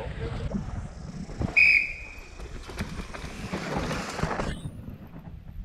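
A single short, loud whistle blast about a second and a half in, one steady high note. Then a rising rush of noise as a downhill bike's tyres tear through loose dirt, cut off abruptly.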